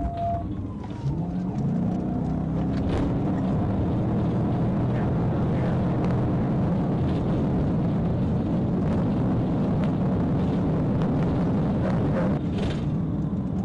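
Police patrol car accelerating hard: the engine note climbs about a second in, then holds steady under loud tyre and wind noise at high speed, heard from inside the cruiser.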